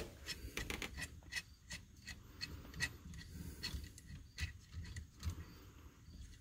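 Irregular light clicks, taps and rubbing of small parts and tools being handled while a steering wheel hub adapter is fitted and lined up on its bolts, busiest in the first few seconds.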